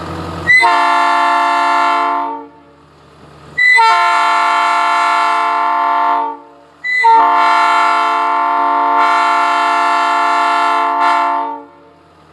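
Multi-chime locomotive air horn blown in three blasts, each longer than the last, as a steady chord. Each blast opens with a short upward chirp.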